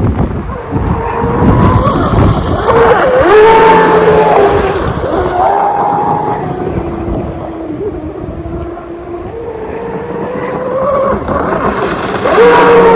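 Pro Boat UL19 RC hydroplane's brushless electric motor whining as the boat runs, its pitch rising and dropping several times with throttle, with wind buffeting the microphone at the start.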